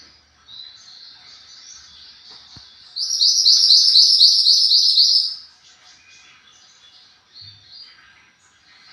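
Mantenan gunung songbird singing: soft high chirps, then about three seconds in a loud, rapid trill of about ten repeated down-slurred notes lasting a little over two seconds, then soft chirps again.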